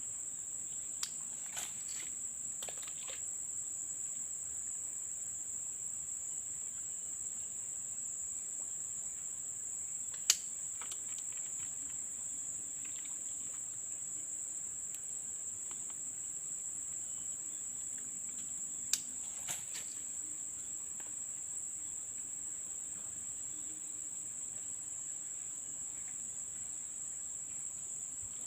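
A steady, high-pitched chorus of insects in a swamp, with a few sharp clicks: the loudest comes about ten seconds in, and two more come close together later on.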